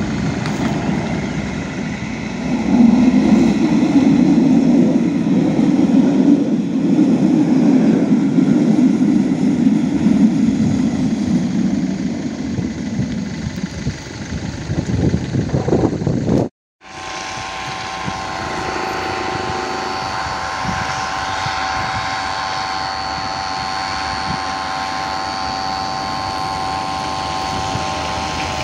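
PESA Link SA139 diesel multiple unit passing, its engine loudest for about ten seconds, then fading. After a cut, a steady electronic warning tone sounds from a level crossing's signals.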